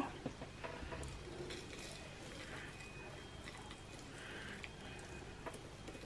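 Faint, scattered ticks and soft rustles of loose bird seed being handled and sprinkled onto a china cup and saucer.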